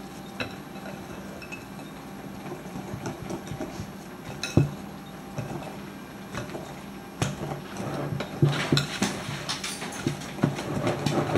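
Metal whisk stirring thick waffle batter in a glass mixing bowl: wet stirring with clinks of metal against the glass. One louder clink comes about four and a half seconds in, and the clinks come more often in the second half.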